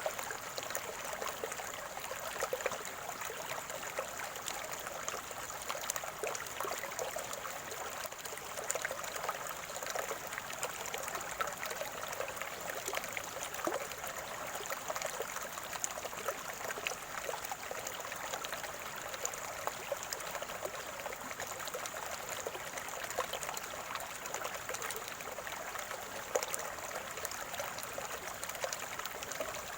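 Small stream of spring water trickling and gurgling steadily, a dense patter of tiny splashes with no pauses.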